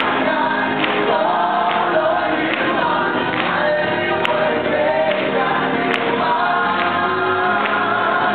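A gospel praise team of mixed male and female voices singing a worship song together, with band accompaniment and a steady beat.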